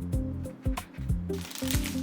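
Instrumental music with a steady beat of low thumps under held notes; a hissy, rustling noise comes in about a second and a half in.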